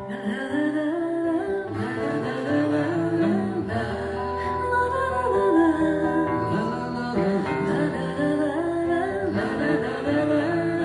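Acoustic guitar accompanying a woman's singing voice in a bard song; the music starts abruptly at the very beginning.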